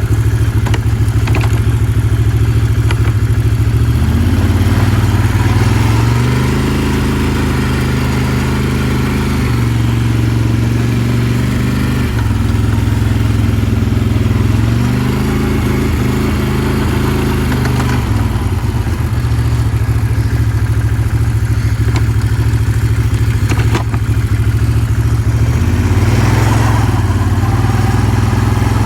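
Freshly rebuilt engine of a 2009 Can-Am Outlander 800 ATV, a Rotax V-twin, running while the quad is ridden. The engine speed rises and falls several times with the throttle.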